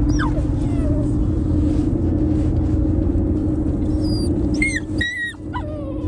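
Golden Doodle puppy whimpering in short falling cries, then giving a few louder, high-pitched yelps about four and a half to five seconds in, over a steady low rumble.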